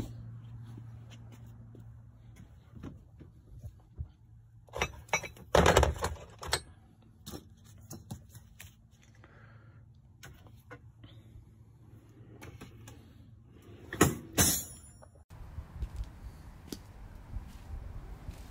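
Metal tools and press adapters clinking and clanking as they are handled and rummaged through at a tool cart, with drawer and door knocks; a loud clatter comes about six seconds in and another around fourteen seconds.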